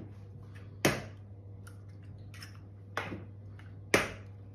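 Eggs being tapped and cracked against the rim of a plastic mixing bowl: a sharp knock about a second in, a softer one about three seconds in, and the loudest just before the end.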